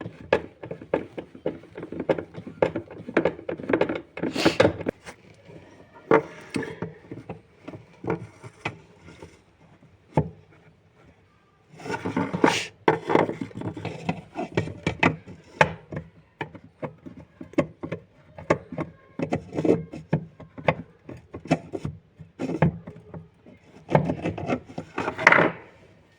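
Dense clusters of sharp clicks and knocks from hands and tools working on a semi-automatic washing machine during a gearbox replacement, with a lull about ten seconds in.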